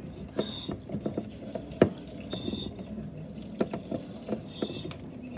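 Water being pumped by hand from a gallon water jug's pump and running into a bowl, with repeated clicks and knocks and one sharp knock a little under two seconds in.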